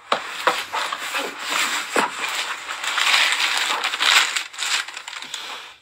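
Close rustling and crackling from something being handled right by the microphone: a dense crinkling noise with many small crackles, loudest in the middle.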